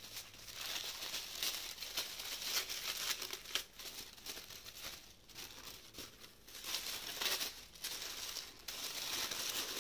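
Tissue paper rustling and crinkling unevenly as hands rummage through it and lift it inside a cardboard box.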